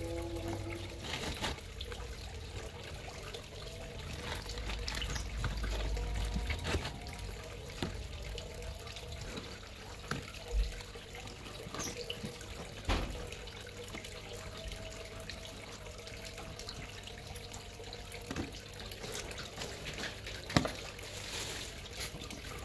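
Clear plastic folding shoe-box doors clicking as they are opened and closed, several short sharp clicks over a steady background hiss.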